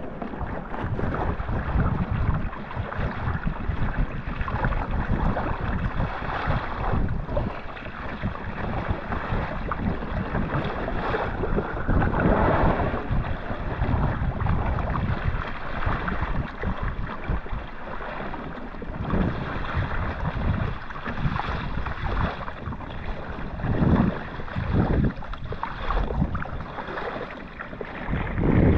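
Wind buffeting the microphone over water sloshing against a kayak's hull, a steady rough rumble with irregular louder surges.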